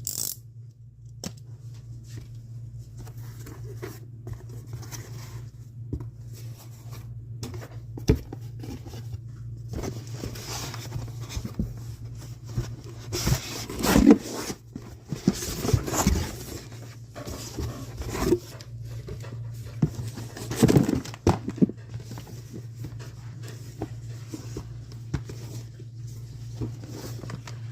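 Handling noise from unboxing a Hyundai blower: scraping, tearing and tapping of packaging and parts, with louder knocks about halfway through and again near two-thirds of the way. A steady low hum runs underneath.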